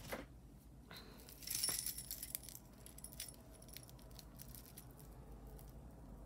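Pieces of costume jewelry jingling and clinking faintly as they are handled and sorted by hand, with a brief louder jangle about one and a half seconds in, then scattered small clicks.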